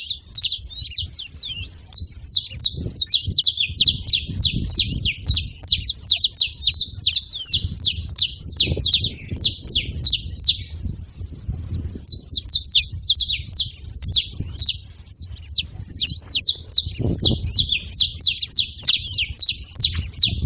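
Several saffron finches chirping, a dense run of short, rapid high notes that pauses briefly about halfway through and then picks up again.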